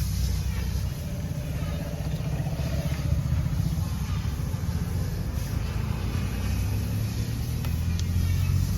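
Steady low rumble of a motor vehicle engine running, with one sharp click about eight seconds in.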